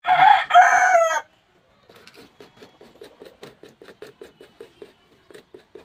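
A rooster crows once, loudly, in the first second or so. After a brief gap, sandpaper is rubbed back and forth over the copper commutator of an electric grinder's armature in quick, short scratching strokes, several a second, cleaning the carbon-brush contact surface.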